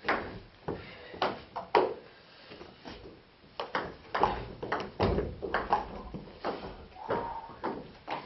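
Table tennis rally: the celluloid ball clicking sharply off the bats and the table in quick, irregular succession, with a heavier thump about five seconds in.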